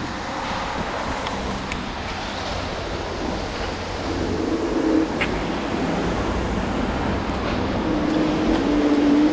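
Wind buffeting the microphone of a rider on a moving electric rental scooter, over steady street traffic. A low wavering tone comes in about four seconds in and again near the end.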